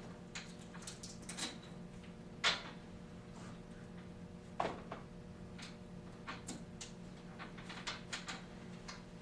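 Fabric sling being worked into the side channels of an aluminum chaise lounge frame: scattered rustles, scrapes and light clicks, with a louder scrape about two and a half seconds in and a knock just before five seconds in.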